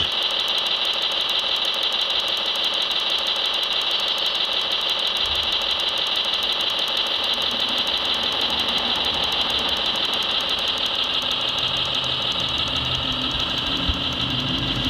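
Steady high whine of a radio-controlled hydraulic model machine's electric pump running. A low rumble joins near the end.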